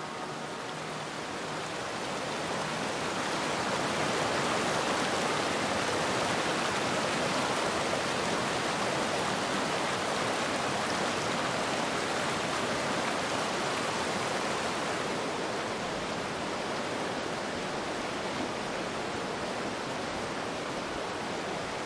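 River water rushing over rocky rapids: a steady hiss of flowing water that swells a little about three seconds in.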